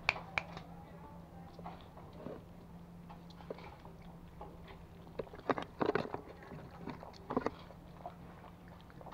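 Pomeranian puppies lapping water from a stainless steel bowl: quiet wet clicks, with a cluster of louder knocks a little past halfway.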